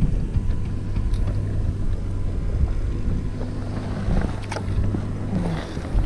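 Wind buffeting the microphone as a steady low rumble, with a couple of light clicks.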